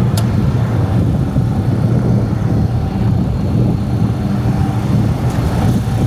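Combine harvester's diesel engine running steadily with a constant low hum, with a single brief click just after the start.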